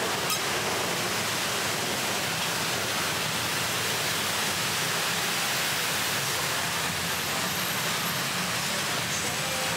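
Steady wash of heavy road traffic on a busy city street: an even hiss of tyres and engines with no single vehicle standing out.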